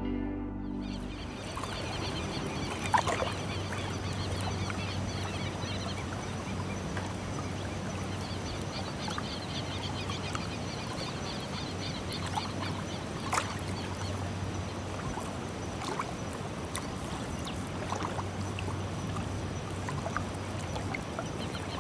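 Birds calling over a steady low hum and a wash of noise, with a few sharp clicks, the loudest about three seconds in.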